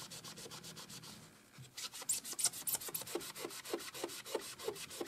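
A damp magic eraser scrubbed back and forth over a 1971 Bally Four Million B.C. pinball playfield, in quick strokes several a second with a short pause a little over a second in. It works like very fine sandpaper, taking off the top layer of clear coat to lift out ground-in dirt.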